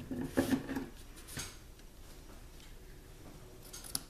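Light handling noises of a ribbon bow being adjusted on a paper card: soft rustling with a few small ticks. The loudest sound is a brief one about half a second in.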